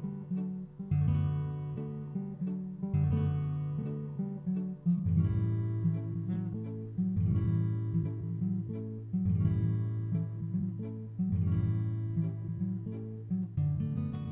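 Acoustic guitar being strummed, with a new chord struck about every two seconds and lighter strums between.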